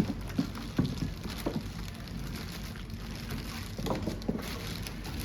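Packaging being handled as a coffee grinder is unboxed: a scatter of light knocks and rustling of cardboard and packing, with a cluster of knocks near the start and a few more about four seconds in.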